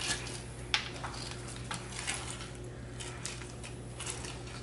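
Scattered soft clicks and crackles as a knife and gloved hands work the rib bones off a salt-crusted, bone-in prime rib roast on a cutting board.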